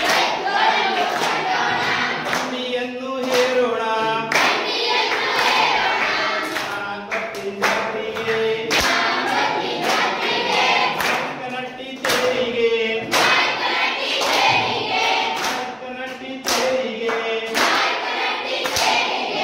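A group of schoolchildren singing a Kannada action song (abhinaya geete) together in unison, with hand claps sounding repeatedly through the singing.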